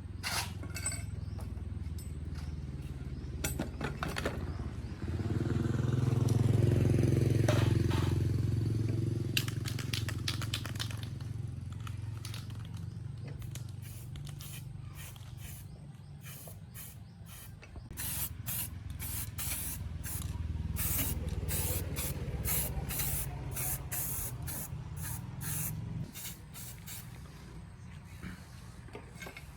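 Pressurized spray in short repeated bursts, coming thick and fast in the second half, over a low steady hum that swells a few seconds in.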